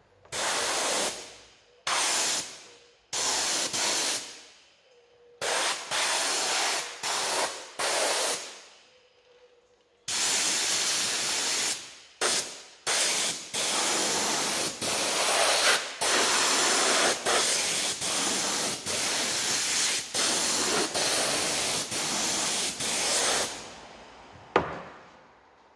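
Pneumatic glue spray gun spraying contact adhesive: several short squirts of hiss, then a long, almost unbroken spray of more than ten seconds that stops near the end. A single sharp knock follows.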